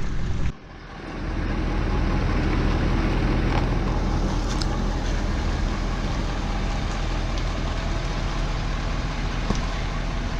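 An engine running steadily with a low, even hum. It drops out briefly about half a second in, then resumes.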